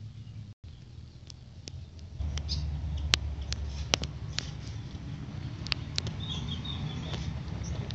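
Handling noise from a phone camera pushed in close behind a car's front grille: scattered sharp clicks and rubbing over a low steady hum that gets louder a couple of seconds in.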